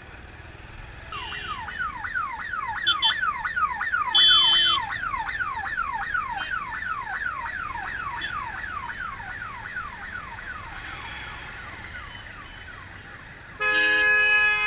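An electronic siren or alarm wailing in a fast repeating downward sweep, about three times a second, fading out after about ten seconds. Vehicle horns honk over it: a short blast about four seconds in and a longer one near the end.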